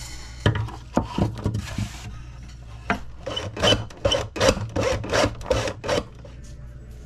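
Hacksaw cutting through a small wooden popper lure body held in a plastic miter box. There are quick back-and-forth rasping strokes, a few uneven ones at first and then a steady run of about three a second, which stop about a second before the end.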